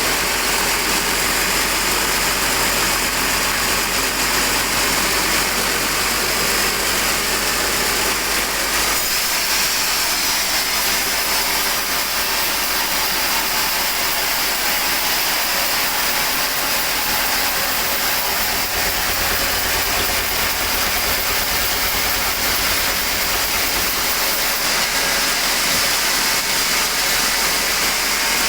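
Sawmill machinery running steadily while sawing teak logs: a loud, even mechanical noise with a strong high-pitched whir over engine drone. The low part of the sound shifts about nine seconds in and again near the end.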